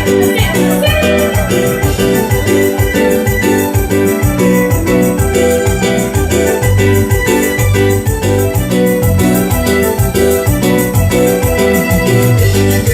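Instrumental live-show music led by an electronic keyboard, with a steady repeating bass beat and no singing.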